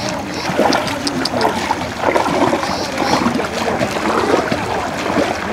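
Feet wading through shallow floodwater, a steady irregular sloshing and splashing from several people walking through it.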